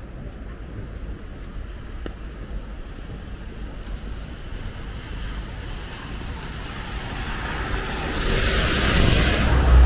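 Road traffic in the rain: a steady low rumble, then a vehicle approaches and passes close near the end, its tyres hissing louder on the wet road.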